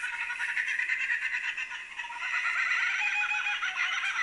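Recorded giant kingfisher call played through a small sound-book speaker: a long run of rapid, repeated notes.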